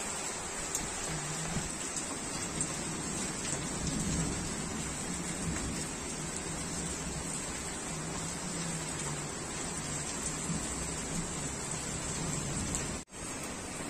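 Steady rain falling on rooftops, a dense even hiss with a low rumble underneath. It cuts out for an instant near the end.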